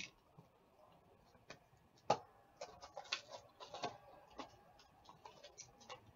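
A cardboard trading-card box being handled and opened by hand: scattered taps and clicks, a sharp knock about two seconds in, then short bursts of cardboard scraping and crinkling as the flaps are pulled open.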